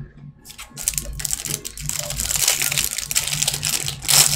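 Crinkly plastic wrapper of a trading-card pack being handled and pulled open by hand: a dense, continuous crackling that grows louder, with its loudest crackle near the end.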